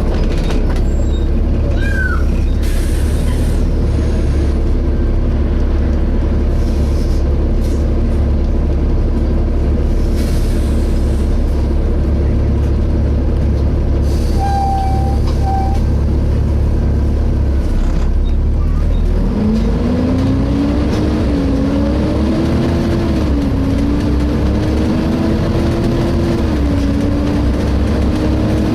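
Inside a Volvo B7TL double-decker bus: the diesel runs steadily with a deep rumble for about eighteen seconds. Then the bus pulls away, and a whine climbs in pitch, dipping briefly a few times as the automatic gearbox changes up. A short electronic beep comes about halfway through.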